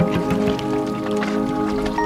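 Background music with sustained, held notes.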